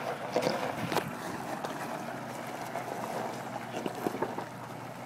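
Wind rushing over the microphone, with irregular crunching footsteps on rocky gravel ground.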